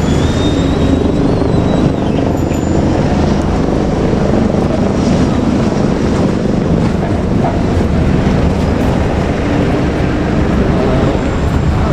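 Four-car KiHa 200 diesel railcar train passing, a steady loud rumble of its diesel engines and wheels on the rails.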